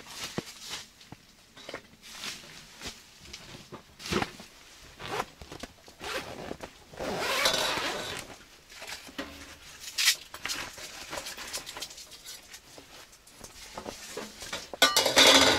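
A fabric carry bag being unzipped and handled, with rustling and clicking as the folding steel tent stove inside is lifted out, and a loud clatter near the end.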